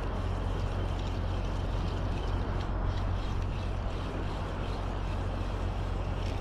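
Steady outdoor noise: wind rumbling on the microphone, with a hiss of open sea water over it and no distinct events.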